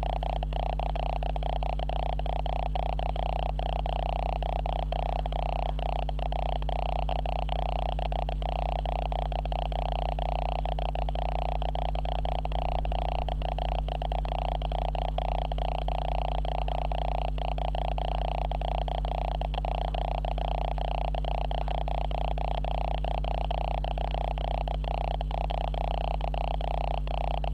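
Steady electronic buzz and hum from a malfunctioning camera's own recording circuitry, a constant fault noise with a fast flutter running through it.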